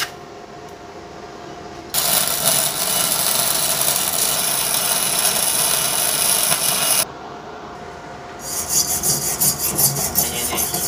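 Kenmax mini MIG welder's arc laying a bead, a steady crackling hiss that starts about two seconds in and stops after about five seconds. Near the end, quick rasping strokes of a hand tool scrub over the fresh weld bead.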